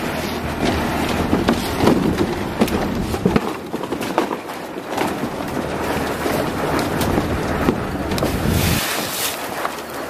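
Construction-site noise on a concrete pour: wind buffeting the microphone over a steady low engine drone, with scattered knocks and clanks from wheelbarrows and footsteps on the wooden planks. The low drone drops away near the end.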